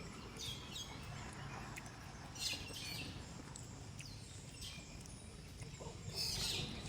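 Short, high-pitched animal chirps or squeaks, scattered irregularly with a louder cluster near the end, over a steady low background rumble.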